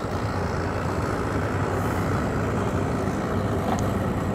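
Mercury 250 Pro XS outboard motor idling steadily, a low, even hum, as the boat pulls slowly away.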